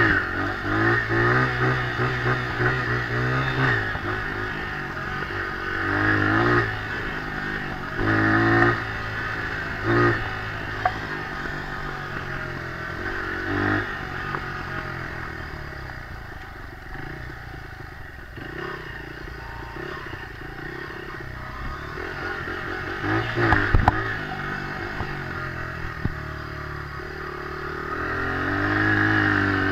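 Dirt bike engine on a trail ride, revving up in repeated throttle bursts and falling back in between. Rattles and knocks come from riding over the bumps, with one sharp knock about three-quarters of the way through.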